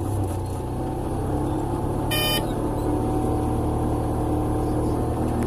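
Car engine running steadily, heard from inside the moving car, with a brief horn toot about two seconds in.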